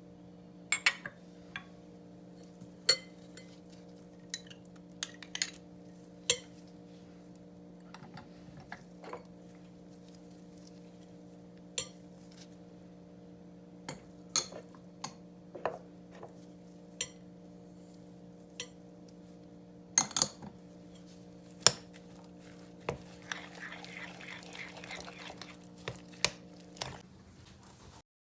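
Kitchen utensils clinking and knocking against a bowl and dishes, in scattered single taps, over a steady low hum. Near the end there is a few seconds of quick rhythmic scraping, like stirring a mixture in a bowl.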